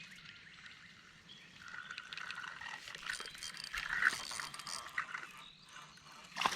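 Fishing reel being cranked, its gears making a faint ticking, rasping whir as line is wound in.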